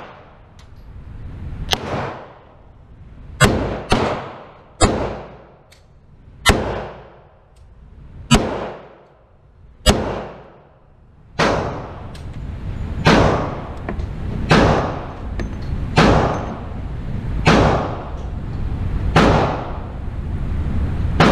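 Ruger LCR double-action revolver firing 38 Special +P rounds one at a time, about a dozen shots one to two seconds apart. Each sharp report rings and echoes off the walls of an indoor range; this load has a large muzzle blast.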